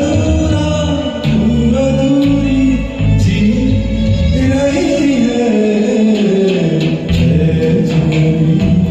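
Karaoke backing music with a wordless sung melody line gliding over steady bass notes.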